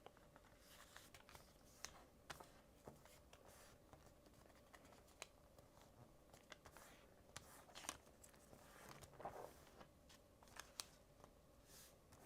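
Faint, scattered rustles and small clicks of a square sheet of origami paper being folded and creased by hand.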